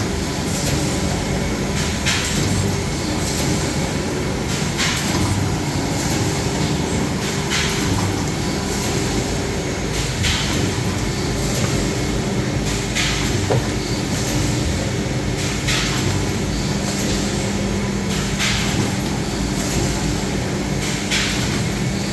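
Automatic hardcover case-making machine (ZTC-1100K) running: a steady mechanical hum with low held tones, and a short sharp stroke about every two seconds as it cycles through its sheets.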